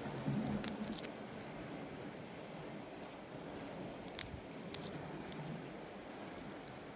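Metal tongs clicking and scraping against gooseneck barnacles and rock, with a few sharp clicks about a second in and again around four to five seconds in. A steady low background wash runs underneath.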